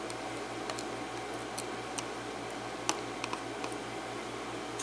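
A few faint, scattered clicks and ticks of small metal padlock parts being handled, with a steady low hum underneath.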